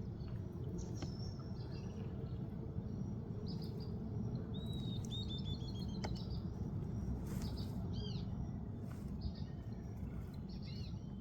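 Wild birds calling outdoors: a quick run of repeated high notes about four and a half seconds in, then a few short arched calls around eight seconds and again near the end. A steady low background noise runs under them.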